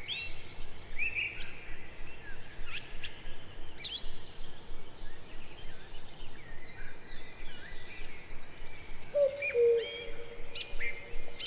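Several birds chirping and whistling in short high notes. From about two-thirds of the way in, low steady hooting notes join them.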